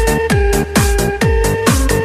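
Electronic dance music with a steady kick-drum beat and held synth chords.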